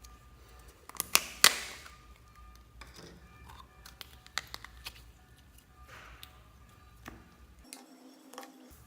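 Slime being worked by hand: a cluster of sharp pops and crackles about a second in, the loudest with a brief hissy trail, then scattered softer clicks and squelches.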